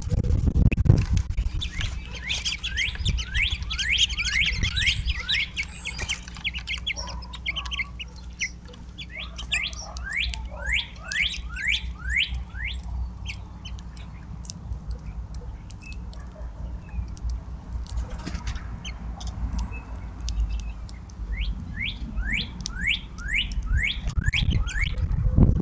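A songbird singing runs of quick, falling whistled notes, three runs in all, over a steady low rumble that swells at the start and near the end.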